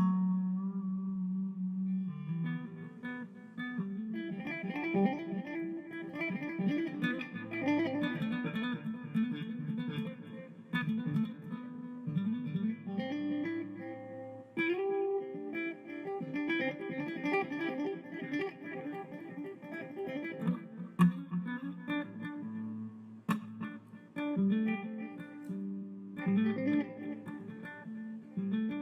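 Background guitar music: plucked electric guitar lines over a bass line, with a few sharp clicks here and there.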